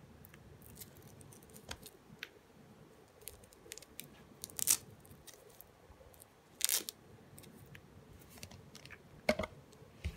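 Hands handling a doll and its clothes: soft fabric rustling and small clicks, with three short, louder scratchy bursts, near the middle, about two-thirds in and near the end.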